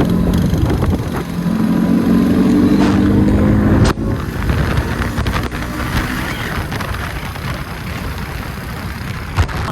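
Motorcycle engine running while riding, with wind noise on the microphone. The engine note climbs over the first few seconds, then drops away abruptly about four seconds in, leaving mostly wind and road noise.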